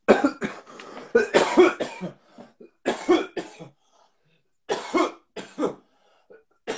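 A man's voice in three loud, breathy fits, the longest over the first two seconds and shorter ones about three and five seconds in, with short pauses between.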